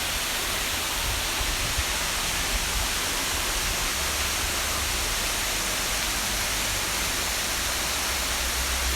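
Waterfall pouring: a steady, loud rush of falling water, with an uneven low rumble underneath.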